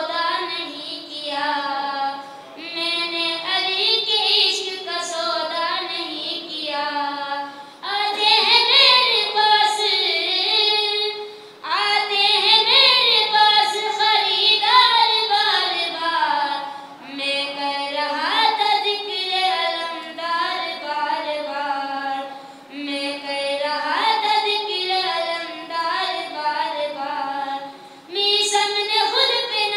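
A boy singing a manqabat solo into a microphone, in long melodic phrases with short breaks between them every few seconds.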